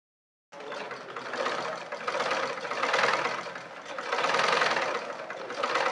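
Sewing machine running with a fast, clattering stitching rattle. It starts abruptly about half a second in, then swells and eases in speed and loudness about every second and a half. This is the noise that the owner asks about as a possible problem.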